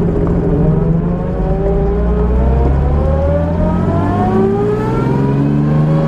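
1964 Jaguar E-type Series 1's 3.8-litre straight-six engine pulling under acceleration. Its note climbs steadily in pitch as the car gathers speed.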